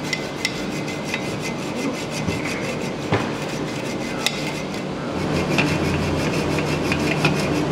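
Hand hacksaw cutting through a steel locomotive part, its blade rasping back and forth in repeated strokes, over a steady low workshop hum.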